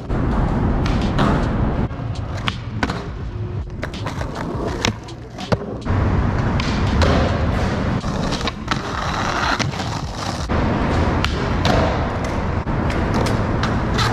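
Skateboard wheels rolling over concrete with a steady rumble, broken by repeated sharp clacks of the tail popping and the board landing during flatground tricks.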